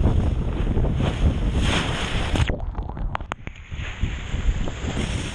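Sea water rushing and splashing along a sailboat's hull in rough seas, with strong wind buffeting the microphone. About two and a half seconds in the hiss suddenly drops away, leaving a duller rush broken by a few sharp ticks.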